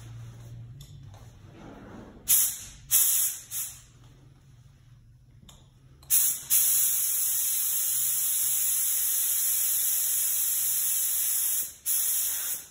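Compressed air hissing from a paint spray gun: three short trigger pulls, then a long steady blast of about five and a half seconds that breaks briefly and resumes just before it stops.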